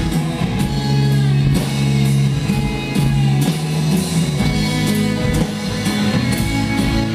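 Live rock band playing an instrumental passage: guitars with bass and drum kit, no vocals.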